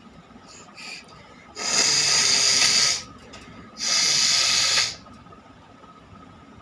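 A person blowing their nose hard, twice, each blow lasting about a second.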